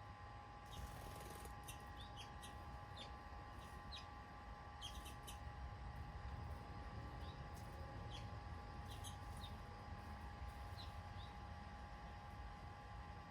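Garden birds chirping faintly: many short, high chirps scattered irregularly, over a constant low background rumble and a steady faint hum.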